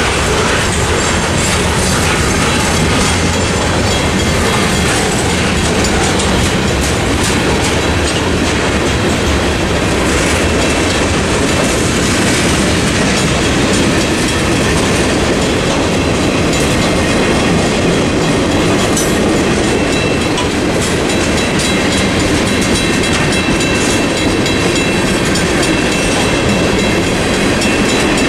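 CSX mixed freight train's boxcars and tank cars rolling past, with the steady clatter of wheels over the rail joints.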